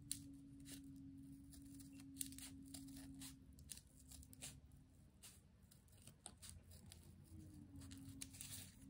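Scissors snipping through a thick folded stack of paper: faint, short snips at an irregular pace of about one or two a second.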